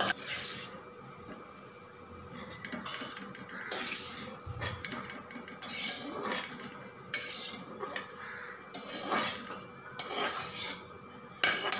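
Steel spoon scraping and stirring roasting coriander seeds around a metal kadai, with repeated scrapes and clinks against the pan as the seeds are scooped out onto a plate.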